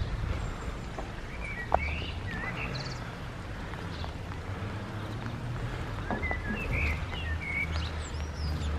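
Small birds chirping in short calls, a cluster about two seconds in and another around six to seven seconds in, over a steady low rumble, with a single sharp click near the two-second mark.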